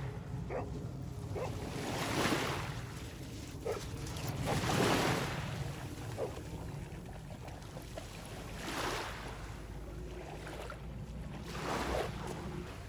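Small waves washing in over a rocky, seaweed-covered shoreline, the wash swelling and fading every two to four seconds.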